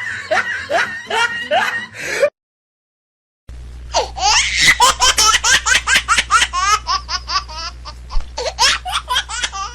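Two laughter sound effects back to back: a laugh that cuts off about two seconds in, then, after a second of dead silence, a long run of rapid, high-pitched laughter over a steady low hum.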